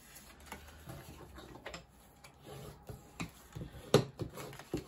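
Light clicks and taps of card stock being handled and folded on a craft mat, with a sharper tap about four seconds in.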